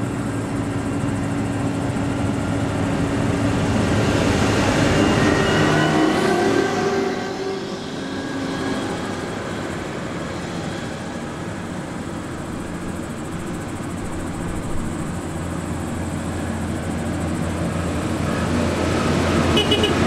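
A Massey Ferguson combine harvester's diesel engine drives past on the road: it grows louder, peaks about five to seven seconds in, then falls away. A second farm vehicle's diesel, a tractor, then approaches with a steady low drone that grows louder toward the end.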